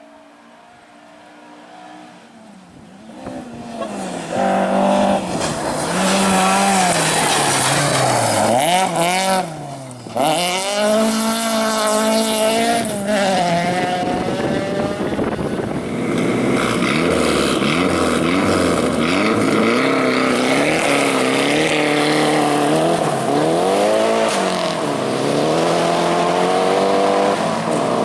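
Rally car engine at full effort. It grows louder over the first few seconds, then runs hard with the revs climbing and dropping again and again, and there is a brief lift about ten seconds in.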